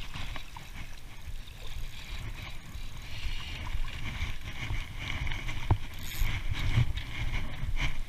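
Wind rumbling on the microphone, with rustling and small clicks from a spinning rod and reel being handled and wound in.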